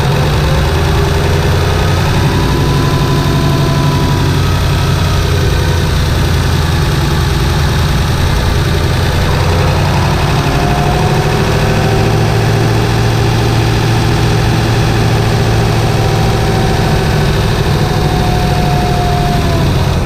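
7.3-litre Powerstroke turbocharged V8 diesel running at light throttle during casual driving, heard close from inside the engine bay. Its pitch rises and falls slowly as the revs change.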